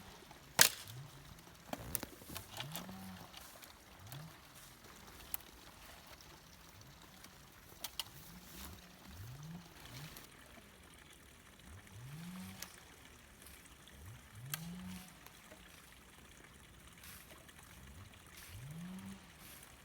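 An animal giving a long series of short, low calls, each rising and then falling in pitch, about one every second or so. A few sharp snaps or clicks fall between them.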